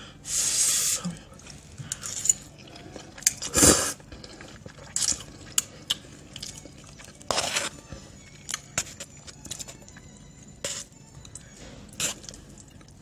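Close-up eating of noodles: a slurp of noodles off a fork in the first second, then chewing and mouth smacks with scattered clicks and knocks of a metal fork on a plate, the loudest about four seconds in.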